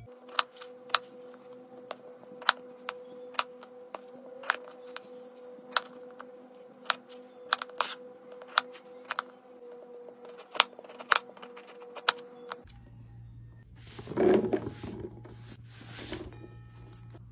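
Sharp, irregular clicks of a knife striking a cutting board as potatoes are cut into chunks, over a steady hum. Near the end, a louder rustling clatter as potato chunks and onion rings are tipped into a frying pan.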